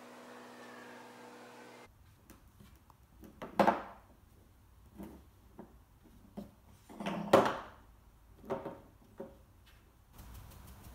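Red fox moving about on a wooden floor and blanket by a window sill: scattered light knocks and scuffs, with two louder bumps, one about a third of the way in and one about two thirds in.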